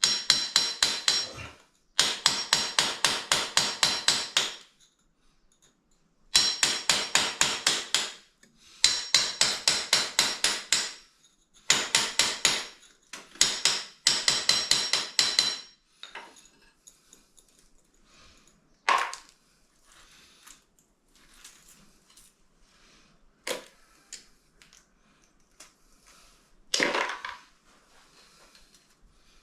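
Quick hammer blows chipping at hard set cement. They come in runs of about two seconds, roughly five or six strikes a second, with a metallic ring. In the second half only a few single knocks follow.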